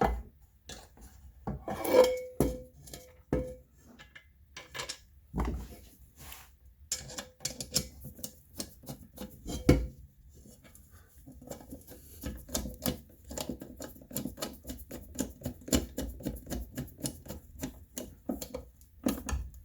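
Handle parts knocking against an aluminum frying pan, several knocks with a short metallic ring. Then a long run of quick clicks as the handle's screw is driven back in.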